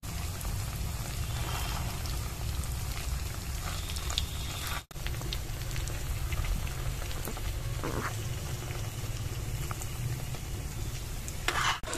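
Puffed-rice sweet dough balls deep-frying in hot refined oil in a metal kadai: a steady sizzle and bubbling of the oil, with a few light clicks of a steel ladle against the pan.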